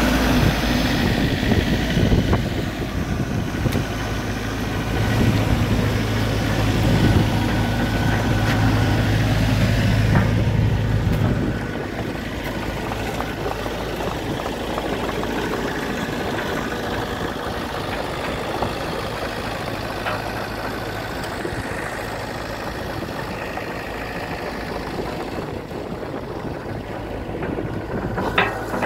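Diesel engine of a 2007 Terex TC35 rubber-tracked mini excavator running steadily with a low hum. It is louder for the first eleven seconds or so, then drops somewhat in level and holds steady.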